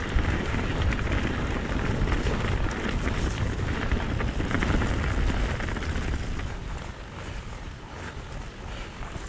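Mountain bike rolling fast over a rough stony track: tyres crunching on loose gravel and the bike rattling, with wind buffeting the microphone. It gets quieter near the end as the tyres move onto grass.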